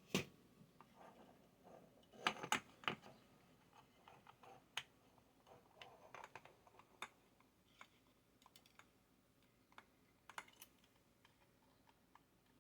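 Faint, scattered clicks and taps of small tools and parts being handled on a workbench, with a cluster of louder knocks about two and a half seconds in.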